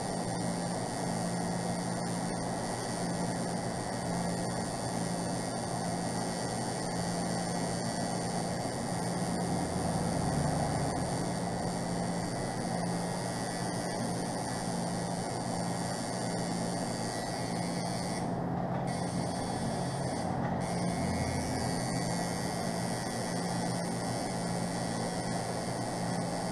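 Tattoo machine running steadily with its needle working into the skin along the stencil lines: a continuous, even hum.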